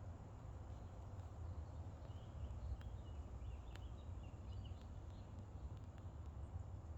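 Faint short bird chirps, scattered through the middle few seconds, over a steady low rumble.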